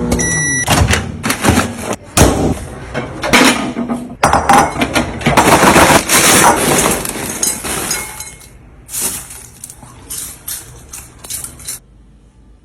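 Glass jars and food containers clinking and knocking as they are handled and set down, in quick clusters that thin out toward the end. A short electronic beep sounds right at the start.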